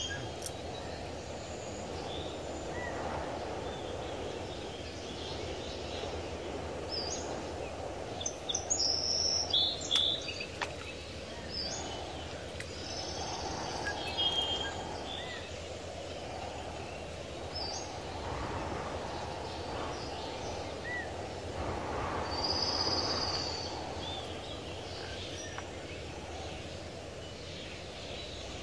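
Outdoor ambience: a steady, even background noise with birds chirping on and off above it, and a couple of sharp clicks about ten seconds in.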